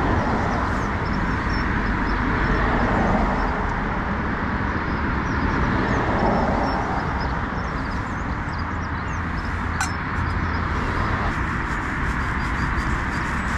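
Steady roar of road traffic from a nearby main road, with faint bird chirps above it.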